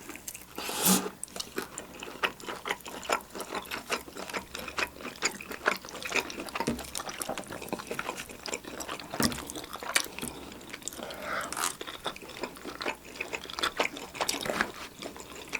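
Close-up chewing of boneless oven-roasted chicken dipped in sticky corn syrup: a steady run of small wet mouth clicks and smacks.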